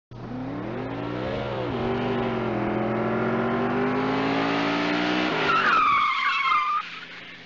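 Car engine accelerating, its note climbing slowly, then tyres screeching for about a second near the end.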